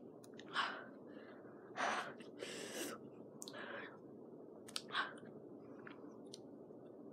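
A person's short, sharp breaths and huffs, about half a dozen, with mouth and chewing sounds, while sucking on a very sour lemon candy: a reaction to the sourness.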